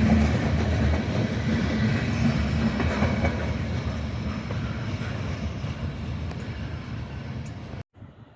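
Train rolling past on the rails, a steady rumble and wheel noise that slowly fades, then cuts off abruptly near the end.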